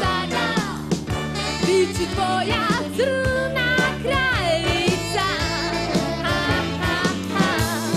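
Upbeat pop-rock band music: drums, bass, guitars and piano, with a wavering lead melody on top.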